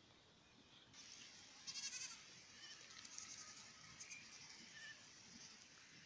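Faint bleating from a herd of miniature goats, loudest about two seconds in.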